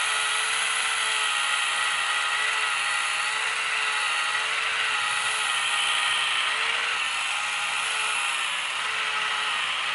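Emjoi Elegant rechargeable electric epilator running with its rotating tweezer head against the skin of a forearm, plucking hairs: a steady motor whine whose pitch wavers slightly.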